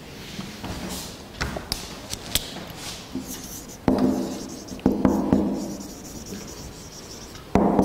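Marker pen writing on a whiteboard. Small clicks at first, then about four sharper knocks of the marker against the board, each ringing briefly, with a faint high squeak from the marker tip.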